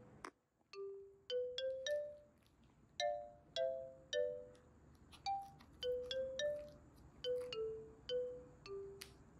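Background music: a slow, light melody of single bell-like notes, about two a second, each ringing briefly and fading.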